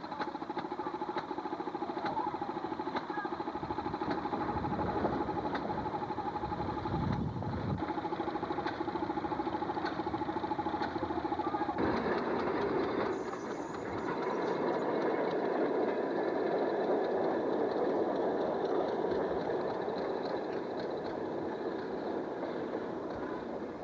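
Railroad motorcar's small gasoline engine running, with rapid firing pulses as the car moves along the rails. About halfway through, the sound changes abruptly to a broader rushing noise of the car travelling.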